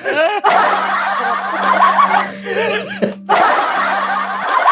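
People laughing hard, in two long bouts with a short break a little past three seconds in.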